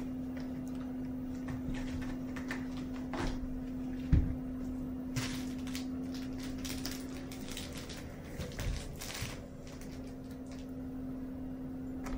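Kittens playing: scattered soft knocks, scuffs and rustles, with one louder thump about four seconds in, over a steady low hum.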